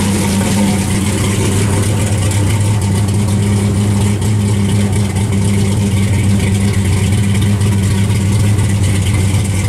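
1968 Chevrolet Chevelle SS pro street car's engine idling steadily, loud and close.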